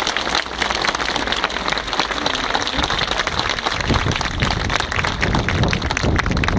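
A large crowd applauding, a dense, steady patter of many hands clapping.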